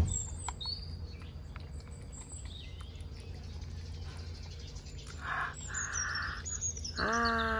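Birds chirping in the background, then near the end a young goat bleats once, a long cry falling slowly in pitch.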